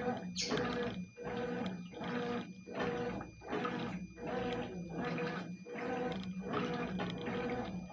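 Consul CWS12 top-loading washing machine agitating: the motor hums and the water sloshes in short strokes, the agitator reversing about every three quarters of a second.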